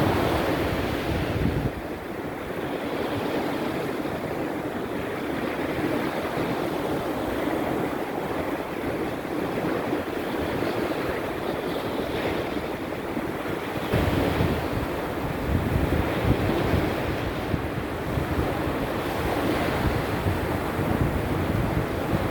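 Sea surf breaking and washing continuously on the shore in a small storm. Wind buffets the microphone as a low rumble, which eases about two seconds in and comes back strongly around fourteen seconds.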